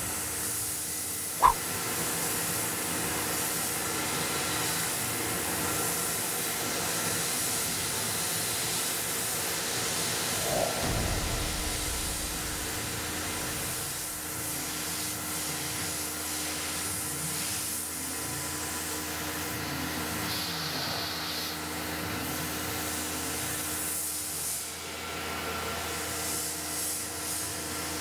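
Tormach PCNC 1100 CNC mill chamfering an aluminium gear: a steady hiss of the coolant spray nozzle over the running spindle's tone, with the machine's motor pitch repeatedly rising and falling as the tool works around the gear teeth. A single sharp click about a second and a half in.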